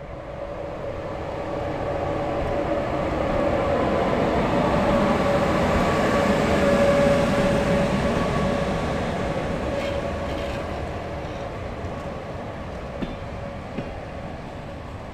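Locomotive-hauled passenger train pulling into a station and passing close by, its wheels and coaches rumbling and a steady whine sounding over the top. It swells to its loudest about seven seconds in and then slowly fades as the coaches roll past more slowly.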